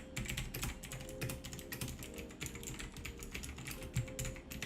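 Typing on a Lingyi Blackwidow budget mechanical keyboard with clicky switches: a quick, uneven run of sharp key clicks, several a second.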